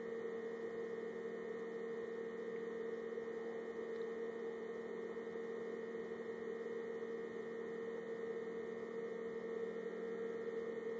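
Steady, unchanging hum: one strong constant tone with fainter steady tones above and below it over a light hiss.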